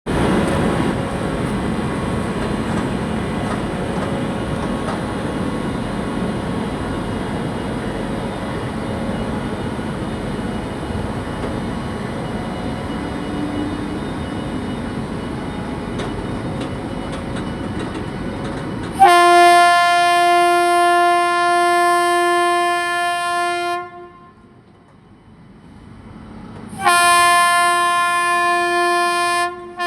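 Steady rumble of a train running for most of the clip. Then a WAG-9HC electric locomotive's horn sounds two long, loud, steady blasts: one of about five seconds starting around two-thirds of the way in, and a second near the end.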